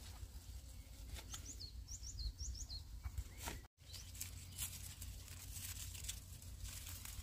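A small bird chirping a quick run of short, falling high notes, over a low rumble of outdoor noise with scattered rustles and clicks. The sound cuts out for an instant about halfway through.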